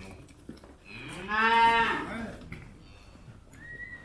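A calf mooing once: a single loud call about a second in, rising and then falling in pitch.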